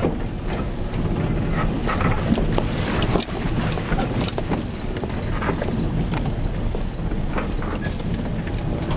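Vehicle driving down a rough dirt road: a steady low rumble with frequent irregular rattles and knocks as it jolts over the bumps.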